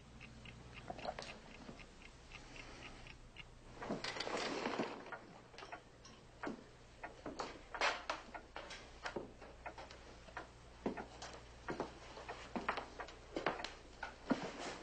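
A clock ticking steadily, about three ticks a second, for the first few seconds. Around four seconds in comes a brief scraping noise, followed by louder, irregular knocks and clicks.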